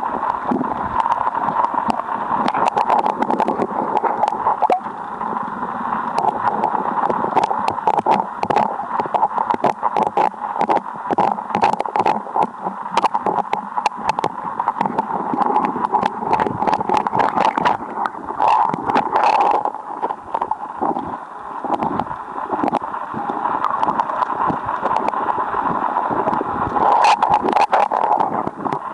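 Rushing river current heard underwater through the camera: a constant muffled gurgle, with many sharp clicks and knocks throughout.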